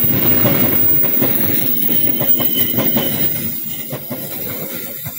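Passenger coaches of the Taksaka express train rolling past on the rails, with repeated clacks of the wheels over the rail joints. The sound fades over the last second or two as the train moves away.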